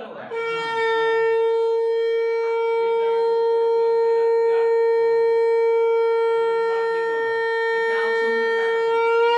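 Conch shell (shankha) blown in one long, unbroken blast at a single steady pitch, starting a moment in and held throughout.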